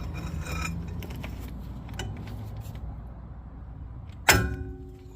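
Light clicks of hand tools over a low steady hum, then about four seconds in a single loud, sharp metallic clang that rings briefly as it fades.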